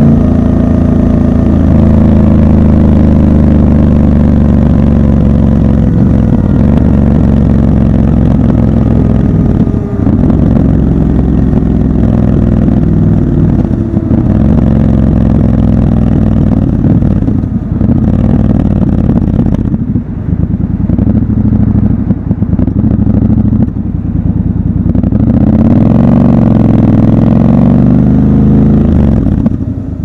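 Triumph Scrambler 1200 XC's parallel-twin engine running under way, heard from the rider's seat: the revs fall at first as the bike slows, hold steady through the middle, and rise again near the end as it accelerates.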